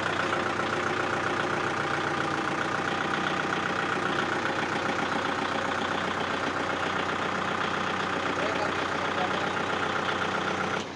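Kubota MU4501 tractor's 2434 cc four-cylinder diesel engine running steadily at low revs while the tractor turns on full steering lock.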